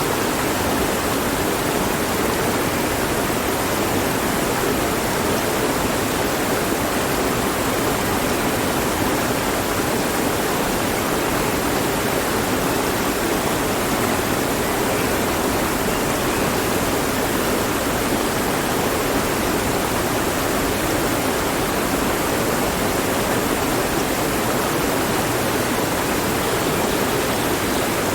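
Mountain stream flowing over rocks, a steady, even rush of water.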